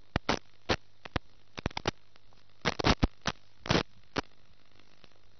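Irregular sharp crackling pops, some in quick clusters, over a faint steady hum: static on the audio of an FPV video recording.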